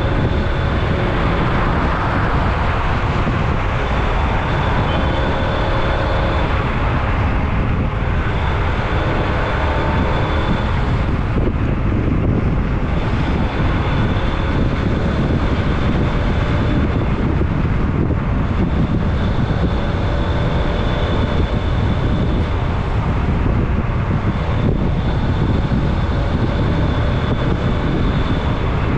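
A vehicle travelling at speed along a highway: steady, unbroken road, engine and wind noise, with a faint high whine that comes and goes.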